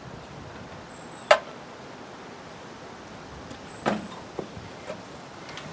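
A sharp metallic click about a second in, then a duller knock near four seconds and two faint clicks: a hand tool tapping and working at the stuck valve of a 5 hp Briggs & Stratton engine that is not running.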